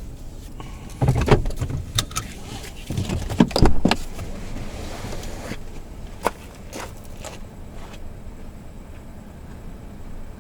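Two bunches of knocks and clatters, one about a second in and a louder one around three to four seconds in, then a few lighter single ticks, over a steady low rumble.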